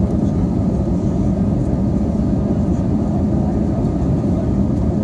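Cabin noise of an Airbus A320 in the climb after takeoff: the steady, loud roar of the jet engines and airflow heard through the fuselage, with a low hum running through it.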